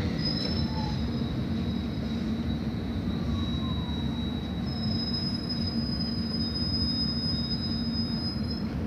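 London Underground S7 Stock train running, heard from inside the carriage: a steady rumble of the wheels on the track with high-pitched wheel squeal. One short squeal comes right at the start, and a longer, stronger one runs from about five seconds in until just before the end.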